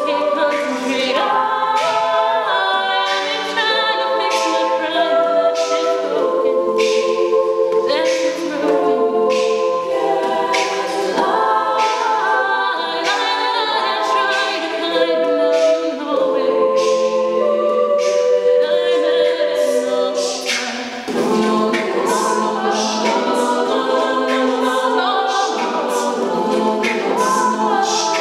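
An all-female a cappella group singing: a solo voice over sustained backing harmonies, with a steady percussive beat running underneath.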